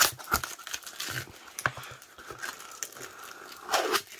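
Clear plastic packing tape being peeled and crumpled off a cardboard box: irregular crinkling and crackling, with a louder rustle near the end.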